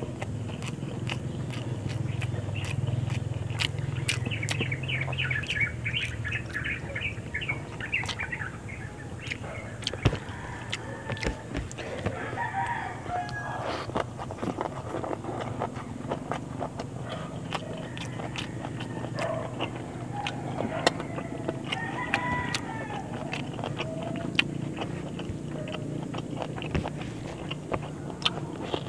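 Close mouth sounds of someone eating rice and fish by hand, wet chewing and smacking clicks throughout. Chickens in the background: fast clucking early on and a rooster crowing about twice, near the middle and again about two-thirds through.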